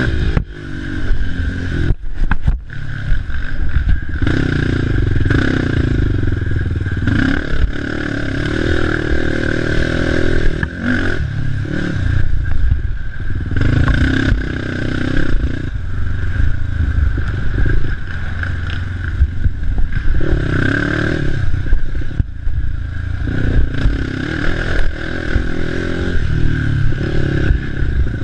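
Racing ATV engine running hard and repeatedly revving up and easing off under load, with clattering and scraping from the rough ground. A few sharp knocks come about two seconds in.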